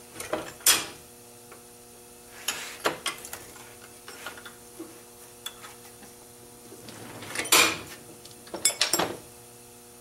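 Hammer tapping a bolt used as a drift to drive brass or bronze bushings out of a 1994 Ford F-250 door hinge held in a steel bench vise: scattered sharp metal clinks and knocks with tool handling between them, loudest a little past halfway and in a quick cluster around nine seconds in. A steady faint hum runs underneath.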